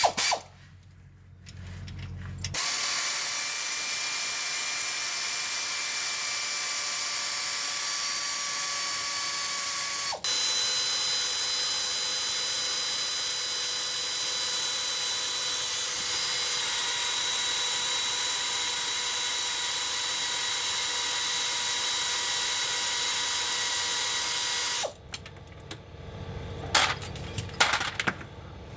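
Compressed-air equipment running with a steady hiss and a whine for about twenty seconds, with a brief break partway through and a shift in pitch. A few sharp clicks or knocks follow near the end.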